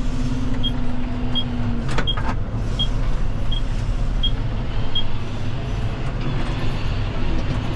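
A John Deere tractor's diesel engine runs steadily, heard from inside the cab. The turn-signal indicator ticks about every 0.7 s and stops about five seconds in.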